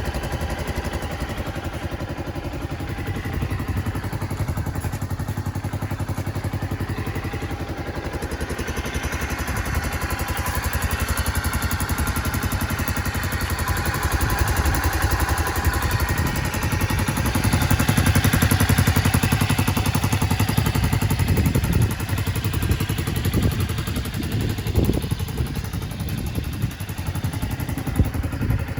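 Suzuki Skywave 250 scooter's single-cylinder engine running, growing louder over the middle of the stretch and easing off again, with a few knocks toward the end.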